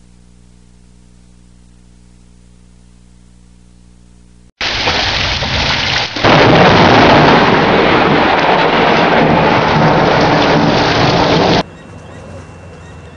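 A faint steady electrical hum, then about four and a half seconds in a sudden, very loud crash of thunder from a nearby lightning strike that lasts about seven seconds before dropping abruptly to a quieter hiss.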